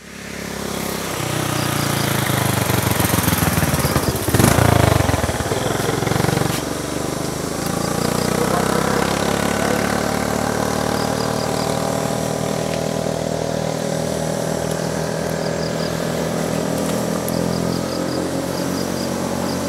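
A small engine running steadily with a low, even pulse, with one loud thump about four seconds in.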